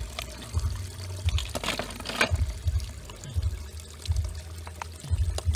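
Water pouring and splashing, with a louder splash about a second and a half in, over a run of dull low thuds coming about once a second, often in pairs.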